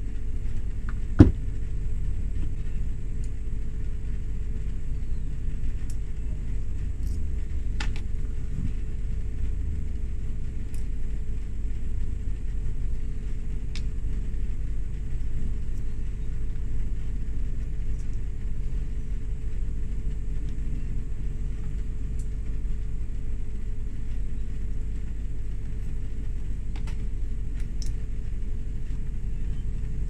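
A few sharp clicks and snaps as a plastic brake light switch is cut and pried apart with side cutters, the loudest about a second in, over a steady low rumble.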